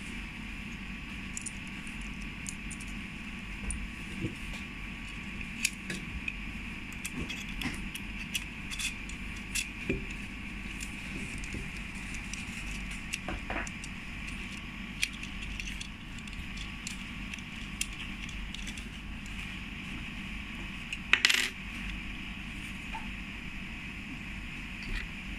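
Scattered light metallic clicks and taps of an Allen key and small screw hardware against a metal M-LOK handguard as a hand stop is fitted and tightened, with one louder clatter about three-quarters of the way through, over a steady background hiss.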